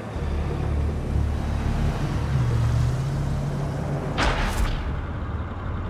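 Low steady rumble with a short whoosh about four seconds in.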